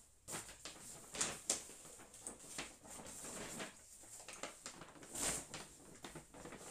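Brown paper shopping bag rustling and crinkling as hands lift it and rummage inside, in irregular crackles and swishes.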